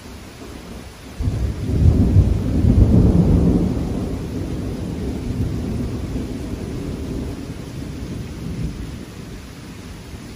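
Thunder cracks suddenly about a second in, then rumbles low and slowly fades over several seconds. Steady rain hisses throughout.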